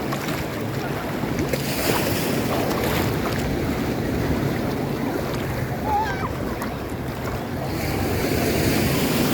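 Ocean surf washing and breaking on the shore, a steady rush of water, with wind buffeting the microphone.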